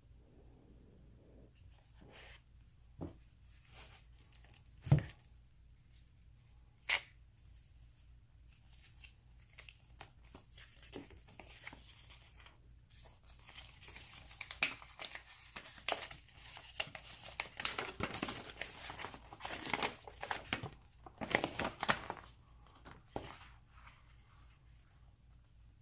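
Plastic shrink-wrap being torn and peeled off a card game box, crinkling and tearing, densest in the middle stretch. A few sharp knocks come in the first several seconds, the loudest about five seconds in.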